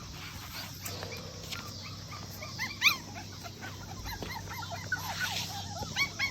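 Several young puppies whining and yipping in short, high, rising-and-falling cries, a few at first and then many overlapping from about two and a half seconds in, with one sharper, louder yelp near the middle.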